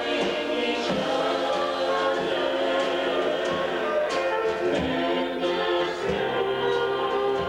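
A vocal group singing gospel music in close harmony, holding sustained chords over an instrumental accompaniment.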